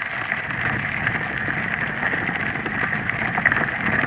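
Steady noise of a bicycle ride: wind rushing over the microphone and tyres rolling over a rough path, with a fine crackle throughout.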